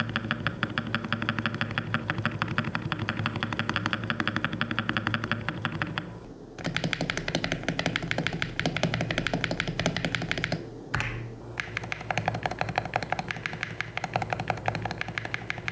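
Fast typing on an IYX MU68 magnetic-switch keyboard fitted with XVX keycaps: rapid keystroke clacks in three runs, with short pauses about six and eleven seconds in.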